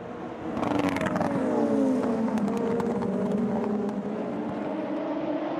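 A field of Super Formula single-seater race cars accelerating away from a standing start. Their 2.0-litre turbocharged four-cylinder engines make many overlapping notes that rise and fall in pitch, with a few sharp crackles.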